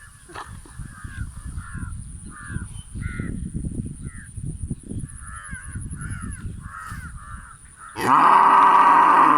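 Cows in a field: small birds chirp over a low outdoor rumble, then about eight seconds in a cow moos loudly once, for over a second, its pitch dropping at the end.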